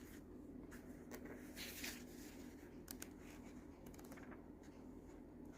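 Faint paper rustling with a few soft taps as a printed instruction manual is handled and leafed through.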